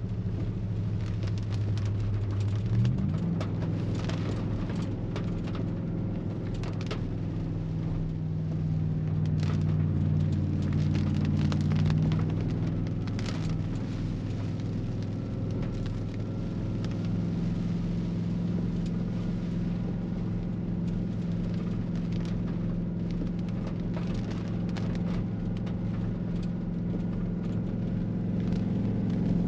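Vehicle engine droning steadily on the move, its note shifting about three seconds in, with scattered light clicks and crackles over it.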